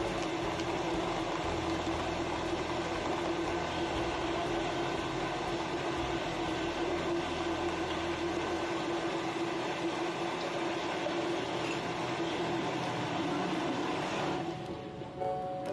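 Countertop blender motor running steadily, blending a mango smoothie of mango, ice and syrup, with a constant whine over a dense grinding noise. It is switched off near the end.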